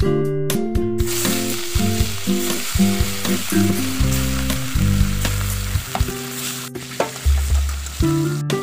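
Fish steaks sizzling as they fry in hot oil in a kadai, starting about a second in, over background guitar music. The sizzle cuts out briefly twice near the end.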